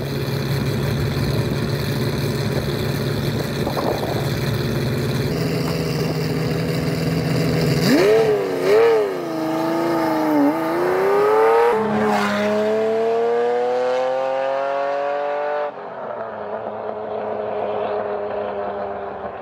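Sports car engine running steadily, then revving in a few wavering blips and rising in pitch as it pulls away, with a shift in pitch partway through like a gear change. The sound breaks off suddenly and a steadier engine note follows near the end.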